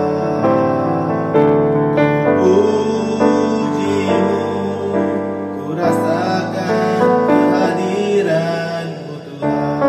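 Worship song: a man singing in Malay over piano chords.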